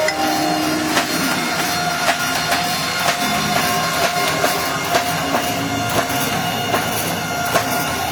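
Hand hammer blows on hot steel at an anvil, a steady rhythm of about two strikes a second, each with a ringing metallic tone, over a constant rushing background.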